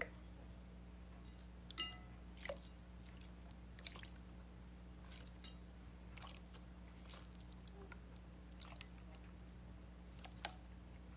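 Slime being squeezed and poked by hand, giving scattered small wet pops and clicks at irregular intervals over a faint steady hum.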